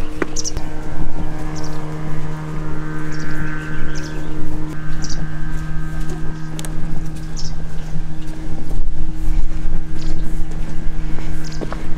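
A motor vehicle's engine running steadily over a low rumble, holding one pitch; some of its higher overtones fade about five seconds in.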